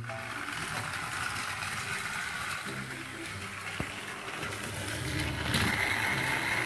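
Motorized Trackmaster Percy toy train's small battery motor running with a steady whir, which grows a little louder about five and a half seconds in.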